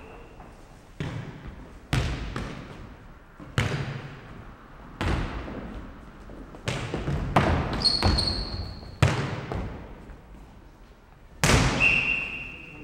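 A footnet ball being kicked and bouncing on the wooden floor of a sports hall during a rally. Each contact is a sharp knock with hall echo, about ten in all at uneven spacing. Two short high squeaks are heard, one past the middle and one near the end.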